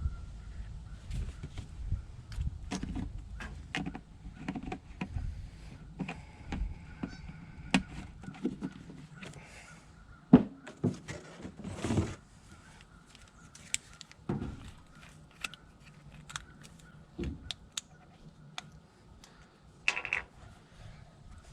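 Handling noises: irregular knocks and clunks, loudest about ten seconds in.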